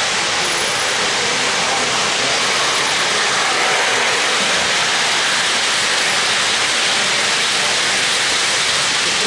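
O-gauge three-rail model trains running on the layout track: a steady rolling hiss and rumble of metal wheels on rail as a boxcar freight and a streamlined passenger train pass close by.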